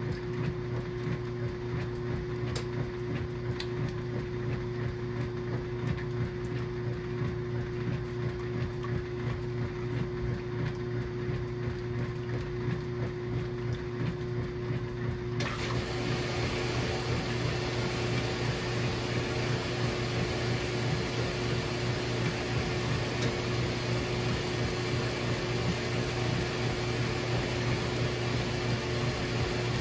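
KitchenAid washing machine running a small load of towels: a steady motor hum, joined suddenly about halfway through by a steady hiss that carries on to the end.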